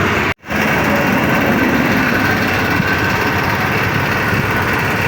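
Steady engine noise running without change, with a split-second dropout to silence near the start.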